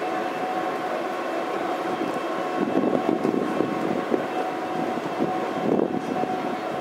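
Passenger coaches of an arriving express train rolling slowly along the platform track, wheels rattling and clanking over the rail joints, over a steady high-pitched whine.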